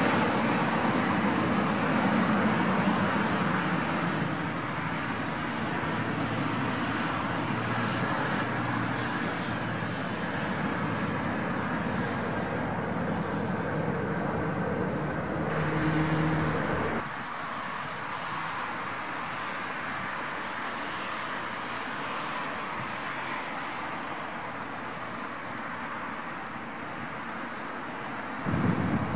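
Jet engine noise from a landing Boeing 777-200LR with GE90 engines as it touches down and rolls out along the runway. It is a broad, steady rush, loudest at first, easing off over the rollout, and dropping suddenly about 17 seconds in.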